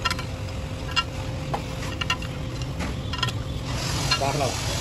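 Hand tools and metal parts clinking against each other now and then, about six light ringing clinks over a steady low rumble and a faint hum.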